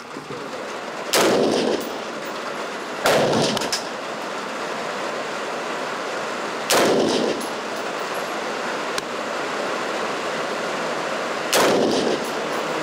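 Norinco CQA 5.56 mm AR-15 (M4-type) rifle firing four single shots at uneven intervals, about two to five seconds apart, each followed by a short echo.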